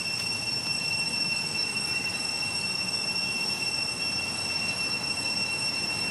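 Steady, unbroken high-pitched drone of forest insects: one constant whining tone with a higher one above it, over an even hiss.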